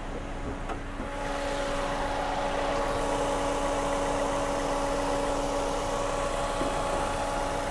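Toyota Yaris's 1.5-litre 1NZ-FE four-cylinder engine idling smoothly and steadily. About a second in there is a faint click as the bonnet is released, and from then on the idle is slightly louder and fuller with the bonnet open.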